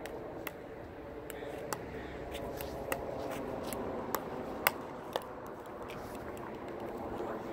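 Pickleball rally with short dinks: a plastic ball struck by paddles and bouncing on the court, making sharp pocks roughly once a second. The loudest hit falls a little past halfway, with quicker hits just before and after it.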